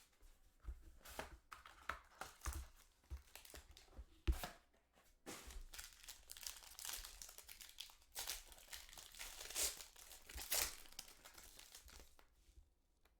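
Packaging of a sealed trading-card box being torn open: crackly tearing and crinkling of plastic wrap, with a few sharp snaps in the first few seconds and denser crinkling through the middle.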